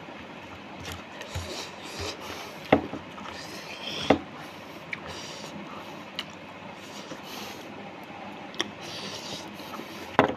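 Eating sounds of rice eaten by hand: chewing with a soft rubbing noise, broken by sharp wet mouth clicks and smacks every second or two.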